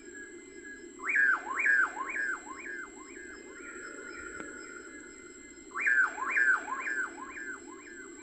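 A bird calling: two series of loud whistled notes, each note sliding sharply downward, about two a second and fading over a few seconds, the first about a second in and the second near six seconds in. A steady low hum runs underneath.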